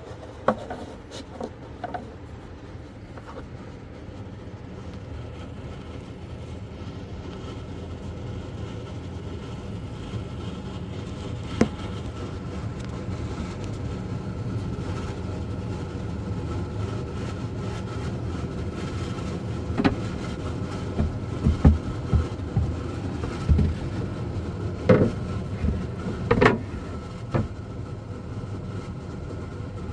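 12V under-bunk air conditioner running on boost, its fan and compressor making a steady hum that builds up over the first dozen seconds after start-up and then holds. Several sharp knocks and clicks come over it, most of them in a cluster in the later part.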